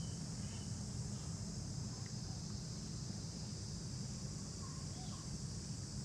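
Steady, high-pitched drone of insects. A low steady rumble runs underneath, and a few faint short chirps come about five seconds in.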